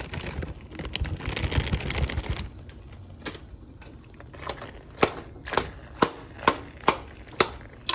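Broccoli tipped into a pot, rustling and rattling for about two seconds. Then a spoon knocks against the pot about twice a second.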